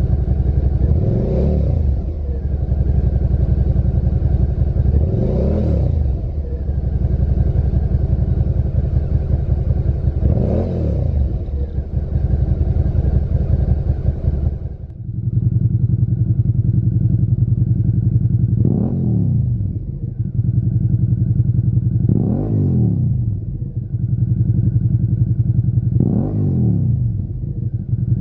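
Suzuki SV650's V-twin idling and blipped three times, the revs rising and falling quickly, through the stock silencer. About halfway the sound changes to the same engine idling and blipped three more times through a Lextek OP1 aftermarket silencer.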